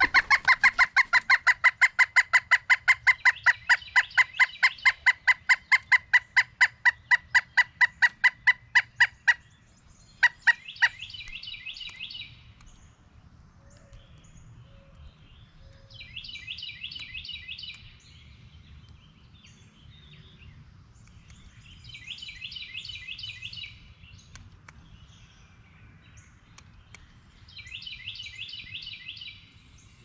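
Pileated woodpecker giving its loud laughing call, a long run of evenly repeated notes at about five a second, which breaks off after about nine seconds with a few last notes. After that, another bird sings a short high trill four times, about six seconds apart.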